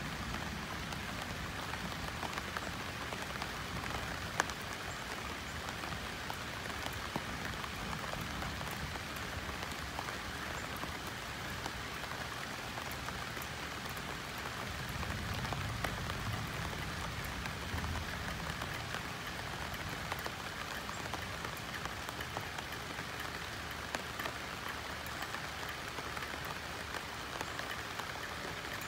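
Steady rain falling on banana leaves, a constant patter with many separate drops striking the leaves and a few louder single hits.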